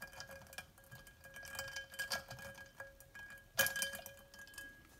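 Small plastic clicks and clinks from a toy doll's tiny baby bottle being handled and filled with water, with the sharpest clink about three and a half seconds in. A faint steady tone hums underneath.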